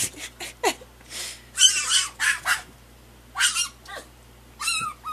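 Pet fennec fox calling in a string of short, high-pitched cries, several in quick succession with brief gaps between them.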